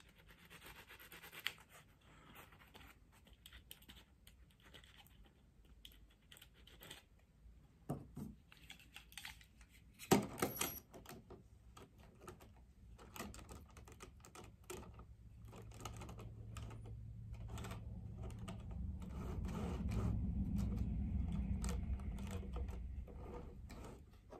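Small clicks and taps of a plastic N gauge model locomotive being handled and turned over in the fingers, then set back on the track. A low rumble swells up in the second half and is loudest near the end.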